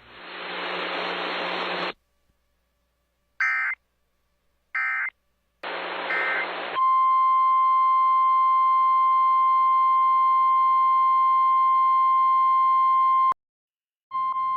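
Radio static hiss, then three short chirps of EAS/SAME digital data (two alternating high tones). Then the steady tone of the NOAA Weather Radio alert, running about six seconds. It cuts off, and after a second's silence it returns briefly near the end.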